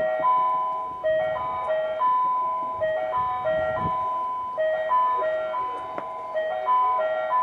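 Electronic chime melody: a short phrase of bell-like notes repeating about every two and a half seconds, as a station platform plays to announce an approaching train. A single sharp click about six seconds in.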